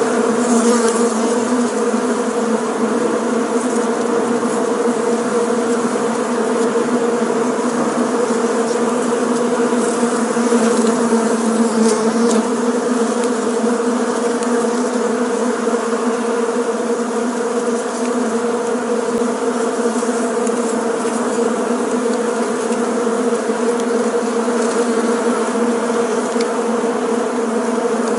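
Bees buzzing in a steady, unbroken hum at an even pitch.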